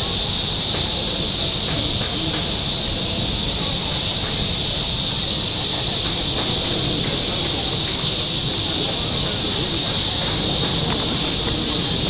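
A loud, unbroken chorus of cicadas droning in the trees, a steady high hiss that does not rise or fall. A low murmur of people's voices sits underneath.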